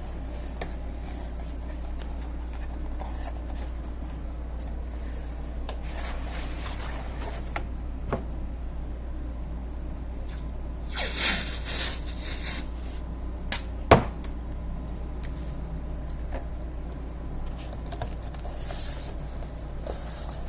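Wooden box parts being handled and taped together: light clicks and rustles, a stretch of masking tape peeled off the roll about eleven seconds in, and a single sharp knock of wood near fourteen seconds, over a steady low hum.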